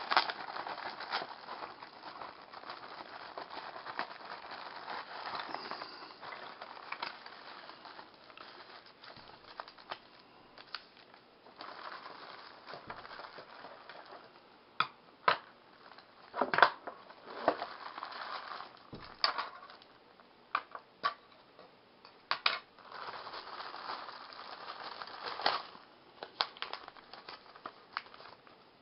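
Clear plastic packaging crinkling and rustling as it is handled and pulled open by hand, with a run of sharp clicks and knocks of small hard plastic parts in the second half.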